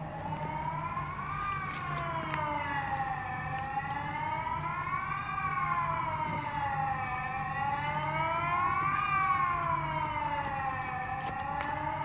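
Mobile civil-defence siren sounding a wailing tone that rises and falls about every four seconds, the pattern of the Swiss general alarm.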